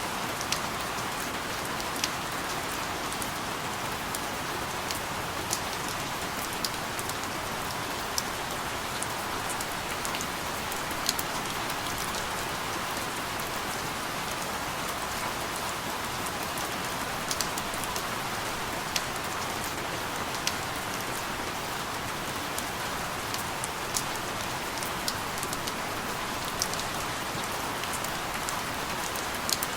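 Steady rain falling, an even hiss with scattered louder drops ticking on a surface every second or so.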